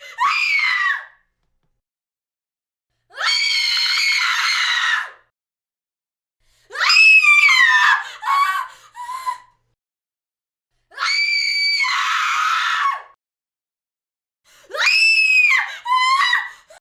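Five separate women's screams of fear, each one to two seconds long, with dead silence between them. The third and fifth break off into shorter shrieks near their ends.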